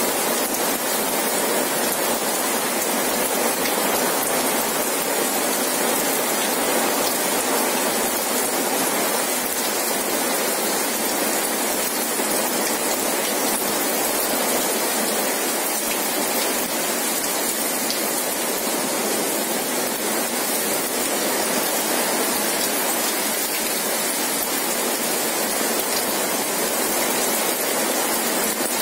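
Heavy rain falling, a steady, dense hiss that keeps on without a break.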